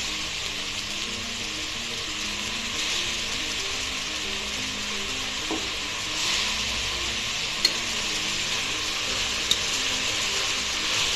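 Vegetables sizzling steadily as they fry in oil in an open aluminium pressure cooker. The sizzle swells about six seconds in as diced potatoes go in, and near the end a metal spoon clicks against the pot a few times as stirring begins.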